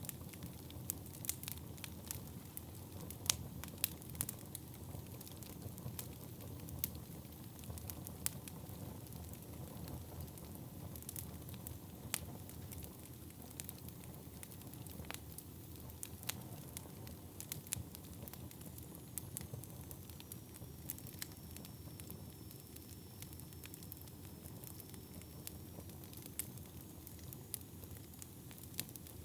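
Wood fire burning in a fireplace: a steady low rumble of flames with frequent sharp crackles and pops. A faint, thin high whine drifts through the second half.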